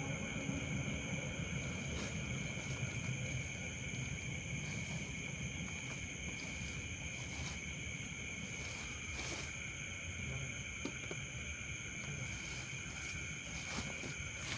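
Steady insect chorus: several high drones held without a break, with a small high chirp repeating about once a second above them. A few light clicks stand out now and then.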